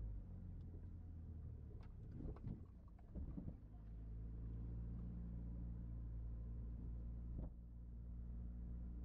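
A car driving slowly, heard from inside the cabin: a faint, low, steady engine and road hum. A few knocks and clicks come about two to three and a half seconds in, and one more comes near the end.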